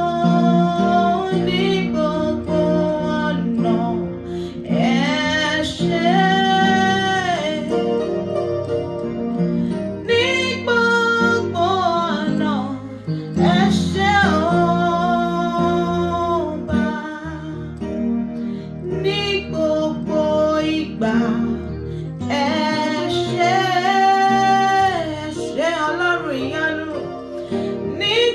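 Worship music: a woman singing long, wavering held notes over guitar accompaniment.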